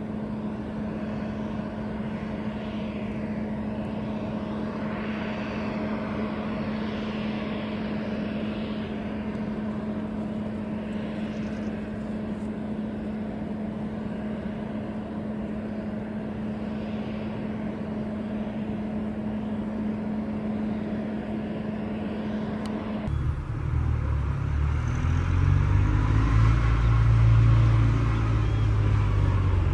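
Jet engines of a Boeing 767 freighter idling as it taxis: a steady hiss with a steady low hum. About 23 seconds in the sound changes abruptly to a louder, deep rumble from a four-engine Boeing 747 on final approach, swelling toward the end.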